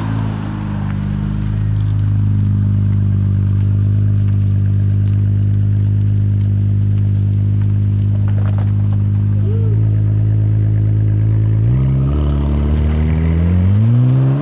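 Second-generation Honda NSX's twin-turbo V6 idling steadily just after being started. About twelve seconds in its note dips briefly, then the revs rise as the car pulls away.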